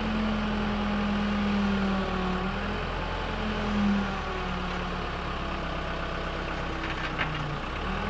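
Backhoe's diesel engine running steadily near idle, its note shifting up and down a few times as the arm and bucket are worked.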